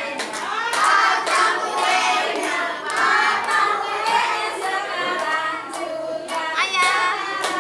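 A group of adults and children singing a birthday song together, with hand claps throughout.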